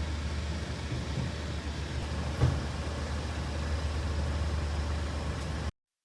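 A motor vehicle's engine running with a steady low hum, with one short knock about two and a half seconds in. The sound cuts off abruptly near the end.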